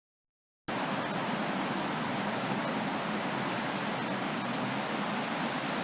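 Steady rushing noise with no distinct events or tones, cutting in abruptly less than a second in.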